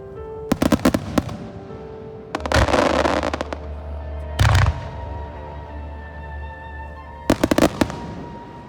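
Aerial fireworks bursting over recorded music. A quick string of sharp bangs comes about half a second in, then a dense crackling burst around two and a half seconds. A single deep boom follows near four and a half seconds, and another string of bangs near seven and a half seconds, while music plays throughout.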